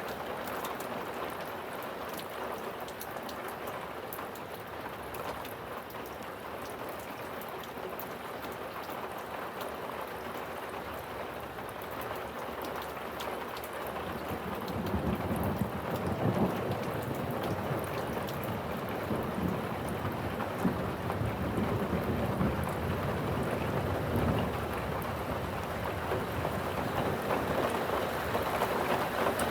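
Steady rain falling, with a long low rumble of thunder building about halfway through and rolling on with a few swells.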